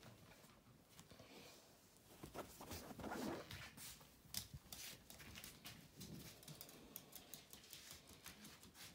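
Small Russian toy terrier's claws clicking and pattering on a laminate floor as it trots about, after a brief rustle and thump about three seconds in.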